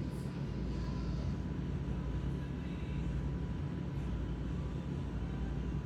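A steady low rumble, as of a vehicle running, with a faint steady high tone above it.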